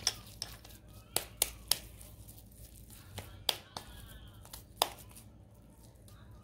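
Hands shaping chicken and chana dal kabab patties over a steel bowl, with a few sharp, irregular taps and clicks.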